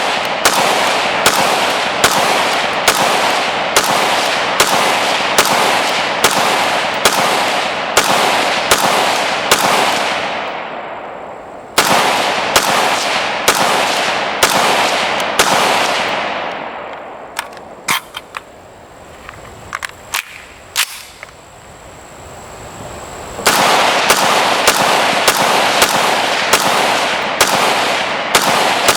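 Colt AR-15 SP-1 semi-automatic rifle firing 5.56x45mm in steady strings of shots, about two a second, each with a ringing echo. In the middle the firing pauses for several seconds with a few faint clicks, then picks up again a little faster.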